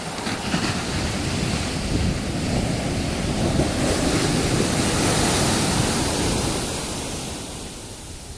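Ocean surf: a wave breaking and washing up the beach, the roar swelling to a peak midway and fading toward the end.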